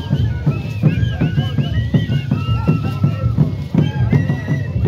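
Andean flute-and-drum music for the shacsha dance: a high, piping flute melody moving in short steps over steady drum beats.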